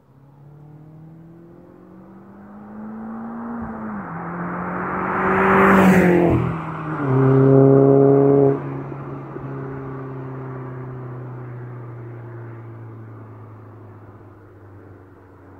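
Turbocharged car with a 3-inch turbo-back exhaust accelerating hard past, its engine note rising with one gear change about four seconds in. It is loudest as it goes by about six seconds in, then drops suddenly as the throttle lifts, and the note fades away.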